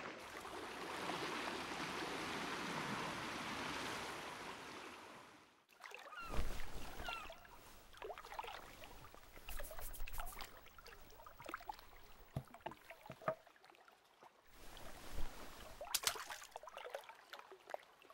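A steady hiss of water that fades out after about five seconds, followed by soft rustles, faint creaks and a few sharp clicks.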